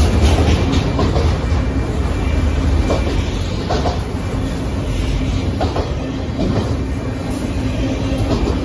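Autorack freight cars rolling past close by: a steady rumble of steel wheels on the rail, with irregular clicks and clunks as wheels pass over rail joints.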